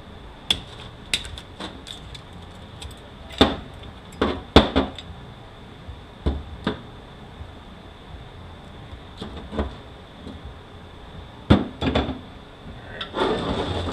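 Steel parts of a 4F27E automatic transaxle clinking and knocking as it is taken apart by hand: a shaft with its gear and a clutch drum pulled out of the case and handled. A dozen or so sharp metal knocks come at irregular intervals, over a faint steady high tone.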